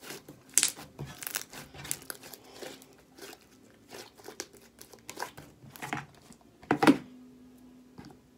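Slime being squeezed and poked by hand: a run of irregular clicks and pops, the loudest about seven seconds in.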